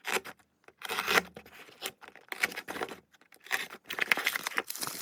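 Packaging being opened by hand: tearing and crinkling in several short bouts with brief pauses between them.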